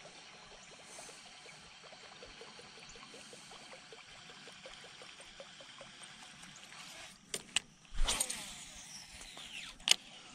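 Buzzbait retrieved on a baitcasting rod and reel, with faint rhythmic ticking. About eight seconds in comes a recast: a burst and a whirr that falls in pitch as the spool slows. A sharp click near the end is the reel being engaged.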